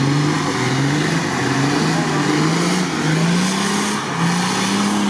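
Off-road 4x4's engine revving hard under load as the vehicle churns through a mud pit, its pitch rising and falling about once a second.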